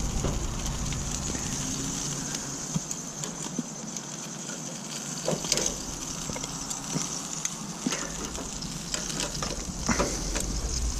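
Chicken leg quarters sizzling steadily on a hot grill grate, with a few light clicks of metal tongs against the grate.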